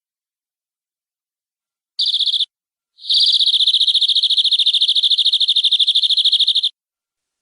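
Domestic canary singing: about two seconds in, a short high rapid trill, then after a brief pause a long, even, fast-pulsed high trill lasting about three and a half seconds.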